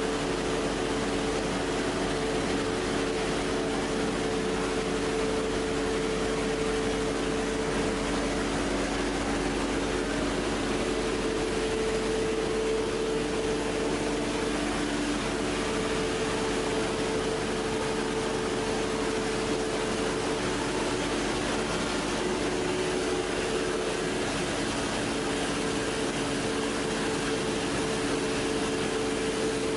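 PP/PET strapping extrusion line running: a steady machinery drone with a constant hum.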